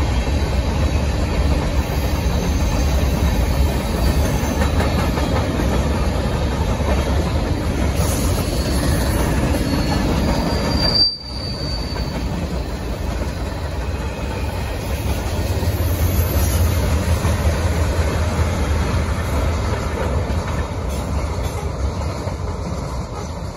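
Freight train cars rolling past on the track: a steady rumble and rattle of wheels on rail, with a brief high wheel squeal about eleven seconds in. The sound eases off near the end as the last cars move away.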